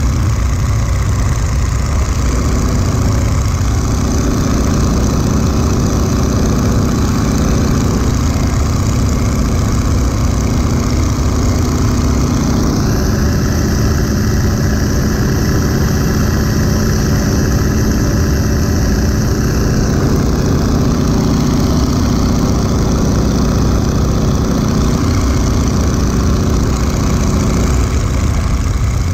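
1941 Boeing Stearman biplane in flight: its radial engine drones steadily at cruise, with air rushing past the open cockpit. The tone shifts slightly for several seconds midway through.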